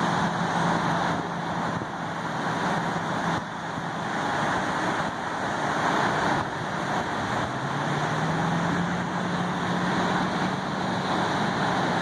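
A vehicle engine running, its pitch climbing about three quarters of the way through and then holding steady, over a continuous rush of breaking surf and wind.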